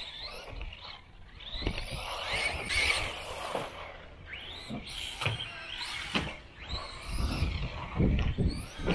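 1/12-scale RC buggy with a 2850-size 5300kv brushless motor, driven around a track: the motor whines up and down in pitch as it speeds up and slows, over tyre noise and repeated knocks. A heavier low rumble comes near the end.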